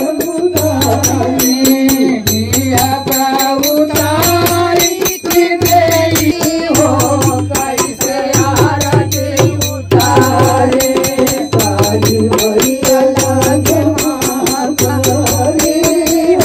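Devotional bhajan sung by men through microphones, with small brass hand cymbals (manjira) clashing in a fast steady rhythm over a low, regular pulsing beat.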